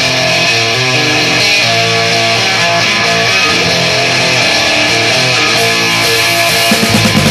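Opening of a 1970s punk rock song: electric guitar strumming chords alone, with drums and bass coming in near the end.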